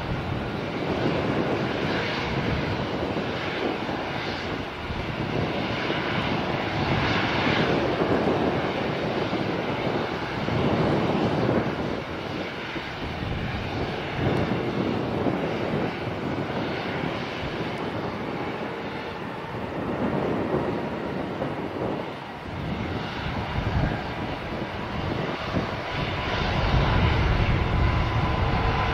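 Airbus A320neo jet engines running as the airliner taxis and lines up on the runway: a steady jet rumble and hiss. Near the end it grows louder, with a steady whine coming in, as thrust is set for take-off.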